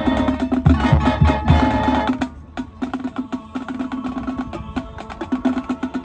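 Marching band playing, the full band with heavy bass drum hits. About two seconds in it drops suddenly to a quieter, lighter passage carried by quick tapping percussion.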